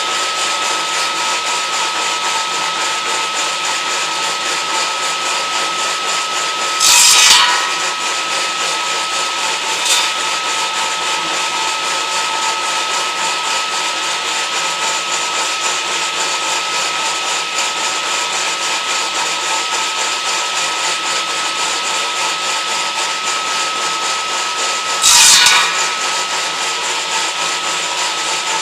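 Homemade circular-saw edging machine running with a steady high whine, with two brief louder bursts, one about a quarter of the way in and one near the end.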